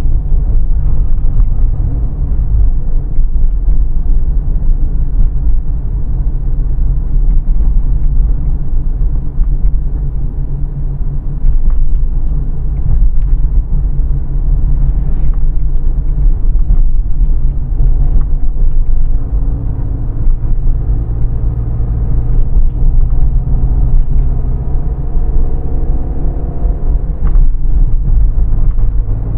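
A car driving on an open road: a steady, heavy low rumble of engine and tyre noise. Its engine note climbs and falls in pitch in the last third as the car speeds up.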